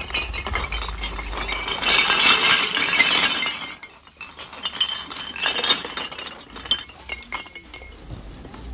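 Sorted recyclables clinking and clattering as a black plastic bag of them is tipped into a large woven bulk bag, with the plastic bag rustling. The clatter is densest and loudest about two to three seconds in, then thins to scattered clinks.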